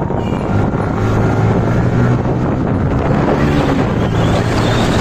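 Yamaha R15 V3's single-cylinder engine running steadily while riding, with heavy wind buffeting on the microphone.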